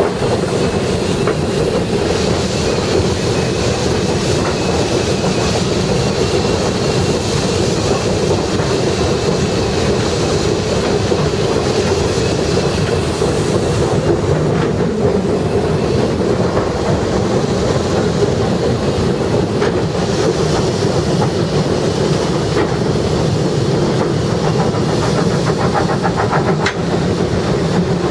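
Steady running noise in the cab of steam locomotive B3 No.130 under way, with the wheels clattering over the rails.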